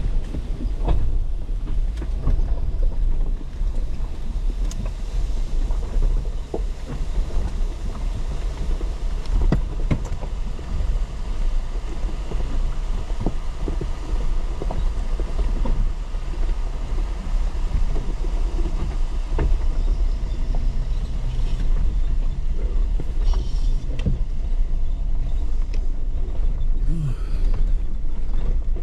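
Jeep engine running low and steady while crawling over rocky trail, with scattered knocks and clunks throughout.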